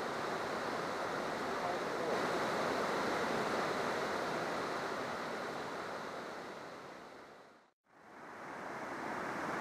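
Rushing white water of river rapids, a steady dense hiss of water. It fades out to silence about eight seconds in and fades straight back in.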